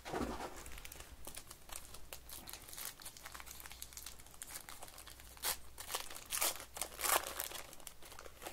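Gold foil wrapper of a Panini Gold Standard football card pack crinkling and tearing as it is peeled open by hand, with several louder crackles in the second half.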